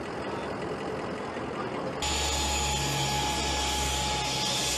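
C-5 Galaxy's turbofan engines running: a steady rushing noise that jumps louder about two seconds in, with a steady high whine over a low rumble.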